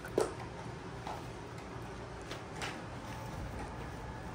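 A dog carrying a bone jumps down onto a wooden floor: a sharp knock about a fifth of a second in, then a few light scattered clicks of claws and bone.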